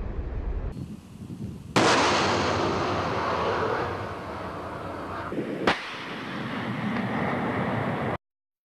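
A sudden loud blast from a BrahMos supersonic cruise missile firing, trailing off into a long roar, with a second sharp crack about four seconds later; the sound cuts off abruptly near the end.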